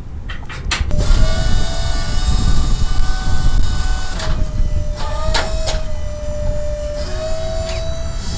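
Car-hauler trailer's hydraulics whining steadily as the upper deck is lowered, over the truck's running engine. The whine starts about a second in and steps slightly in pitch twice, with a couple of sharp clicks midway.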